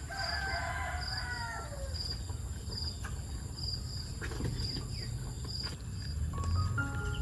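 A rooster crows once at the start, one drawn-out call that falls in pitch at the end. Insects keep up a steady, regular high chirping.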